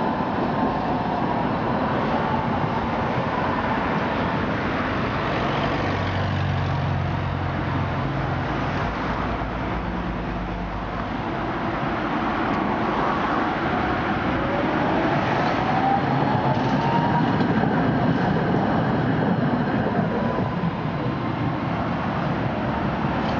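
City trams running on street track amid road traffic, their electric motors giving a whine that rises and falls in pitch as they pass and pull away. A low engine drone joins in about the middle.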